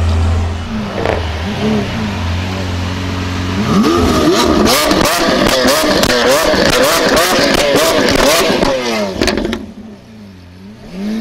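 Lamborghini Aventador's 6.5-litre V12 through a Capristo exhaust, idling and then revved hard again and again from about four seconds in. Between the revs the exhaust gives a run of sharp pops and crackles. It falls back near the end, then the engine note begins to rise again.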